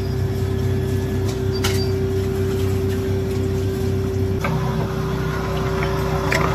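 Electric meat mincer's motor running with a steady hum and whine. About four and a half seconds in there is a click, after which the machine's sound gets busier as it works.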